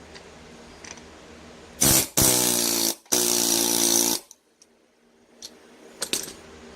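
A small motor, like a power tool's, runs in three bursts about two seconds in: a short one, then two of about a second each, at a steady pitch. A few light clicks follow near the end.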